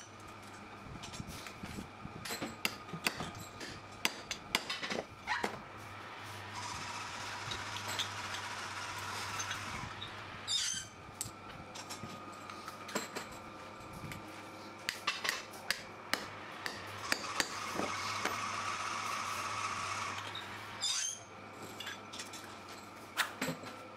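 Metal hand tools clinking and tapping on small shock-absorber parts in an irregular series of sharp knocks, over a steady workshop machine hum.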